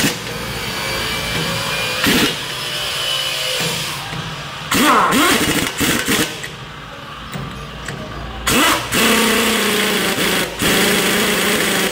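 Pneumatic impact wrench working the wheel nuts on a heavy truck's rear wheel. It runs in about five short loud bursts, the pitch sliding up and down as the air motor spins up and slows.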